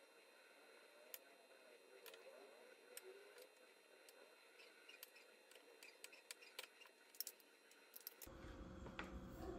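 Near silence with faint scattered clicks and soft handling noises from chiles being stuffed with shredded chicken by hand. A low steady hum comes in near the end.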